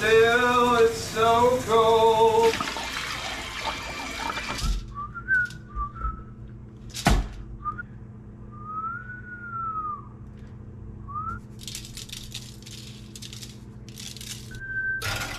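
Music with a singing voice, then a rushing hiss that cuts off suddenly about four and a half seconds in. After it a person whistles a tune in short phrases, with one sharp knock about seven seconds in and a run of dry rattling shakes from a plastic seasoning shaker near the end.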